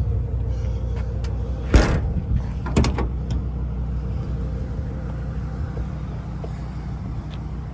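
An engine running steadily with a low hum. Two sharp knocks stand out, about two and three seconds in.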